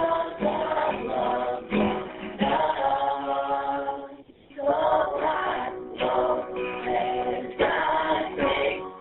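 A small mixed group of voices singing together in harmony over an acoustic guitar, with a short break in the singing a little over four seconds in. The sound is scratchy and dull, with the treble cut off, as it comes through a poor phone microphone.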